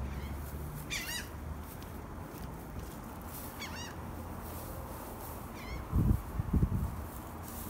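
A bird calling three times, short high wavy chirps spaced about two seconds apart. Two dull low thumps, the loudest sounds, follow shortly after the last call.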